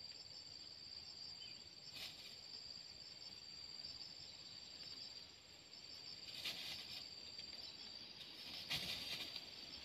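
Steady chirring of insects in the forest, a high pulsing tone with a fainter, higher one that drops out near the end. Short rustles, like dry leaf litter being stirred, come about two seconds in and twice more in the last few seconds.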